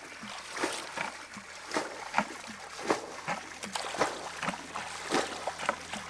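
Hands splashing and scooping in shallow muddy water, with irregular wet splashes and slaps a few times a second.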